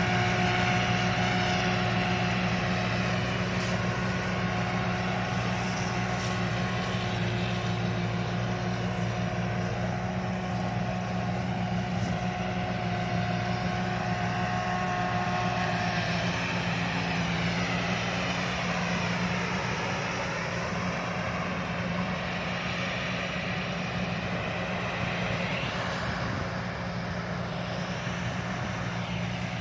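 Rice combine harvester's diesel engine running steadily with a drone, its pitch dipping and recovering around the middle.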